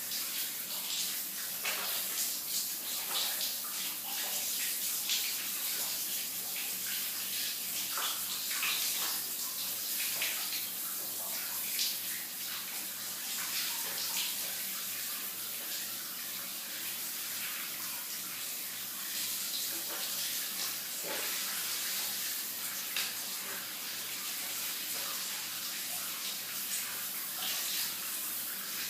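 Shower running: a steady hiss of falling water, with small irregular splashes.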